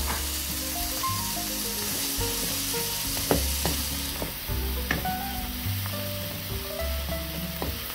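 Mixed vegetables and mushrooms sizzling in hot oil in a nonstick wok as a wooden spatula stirs them, with a few sharp clicks of the spatula against the pan.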